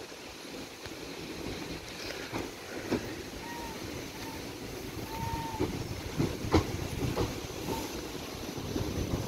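ScotRail Class 334 electric multiple unit running into the platform and slowing, growing louder as it comes alongside, with scattered clicks from the wheels and one sharp click about six and a half seconds in. A few brief faint squeals come near the middle.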